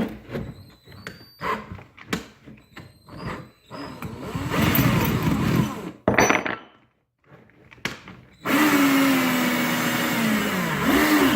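Electric drill running in two bursts: a short one about four seconds in and a longer steady run from about eight and a half seconds, its pitch sagging and recovering near the end. Light clicks and knocks of handling come before.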